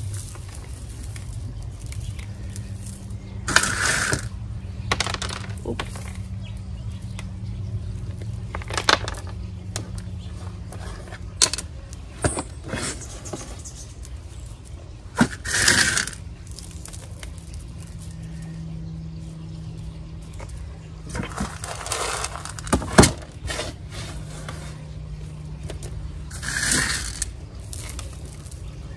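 Small pebbles poured by hand onto potting soil and spread around a cactus, the gravel clattering and scraping in irregular bursts as each handful lands. A steady low hum runs underneath.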